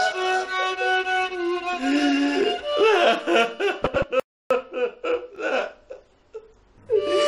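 Background music led by violin, with a man sobbing and whimpering over it. The sound cuts out for a moment a little after four seconds in.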